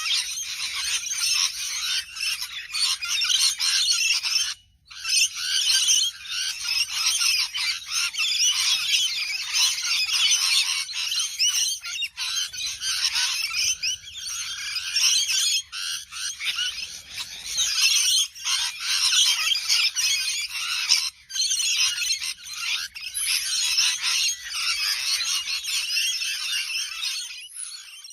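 Parrots chattering and squawking together in a dense, continuous stream of high, scratchy calls, breaking off briefly twice.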